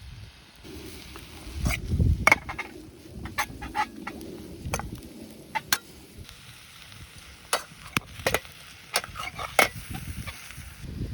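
Cooking in a wok over a wood campfire: irregular sharp clicks and clanks over a steady sizzling hiss.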